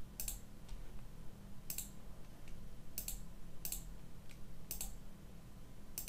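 Computer mouse clicks: about five sharp single clicks spaced irregularly, a fainter click following some of them, over a steady low electrical hum.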